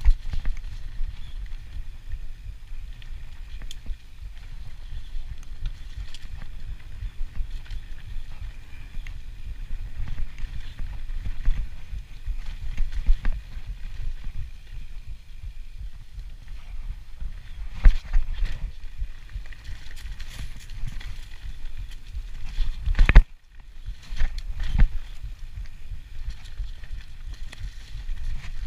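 Mountain bike descending a rough dirt trail at speed: a steady low rumble of tyres over dirt, with sharp clunks and rattles as the bike hits bumps, the loudest about three quarters of the way through.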